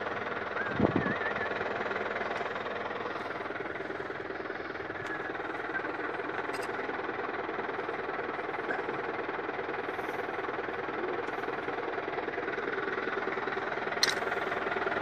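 Reaper-binder and the tractor drawing it running steadily: a constant mechanical clatter and engine noise, with a short knock about a second in and a sharp click near the end.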